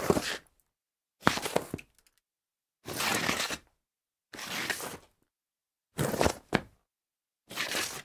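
A series of short slides on a tile floor: about six separate scraping skids, each under a second long, with short silences between. Around two thirds of the way in, one slide ends with a quick second scuff.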